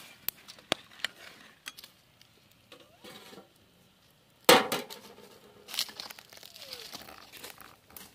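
A perforated metal ladle clinks against an iron kadai holding crab curry in a few light knocks. About halfway through there is one loud metal clank with a short ring as the pan is covered with a metal lid, then a smaller knock.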